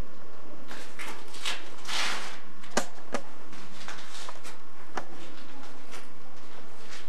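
Steady hiss of an old camcorder's recording, with scattered sharp clicks and a brief rustle about two seconds in, the sort of handling noise a hand-held camera picks up as it moves.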